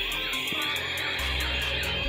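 Battery-powered light-up toys, gear-filled toy Chinook helicopters and a toy police car, running together and playing their built-in electronic tunes over one another, with warbling siren-like tones that rise and fall over and over.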